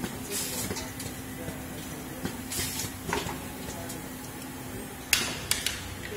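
SCARA robot automatic screwdriving machine running over a steady hum, with a short hiss of compressed air about every two and a half seconds as screws are blown down the feed tube to the screwdriver. A few sharp clicks come near the end.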